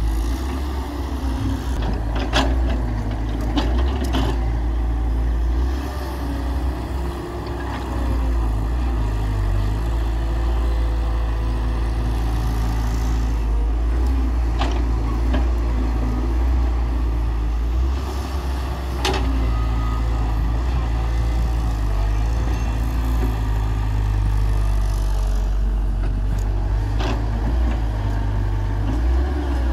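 Diesel engine of a Hyundai Robex 1300W wheeled excavator running steadily as it digs and loads soil into a tractor trolley. A few short sharp knocks stand out now and then.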